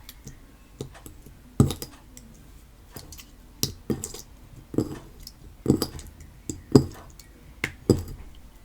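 Wet, sloppy homemade slime being mixed by hand in a bowl: irregular soft knocks and clicks against the bowl as the fingers work the mixture.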